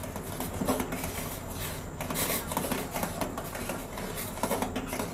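A metal ladle stirring boiling tomato soup in a stainless steel pot, with light, irregular clinks and scrapes of metal on metal over the bubbling of the soup.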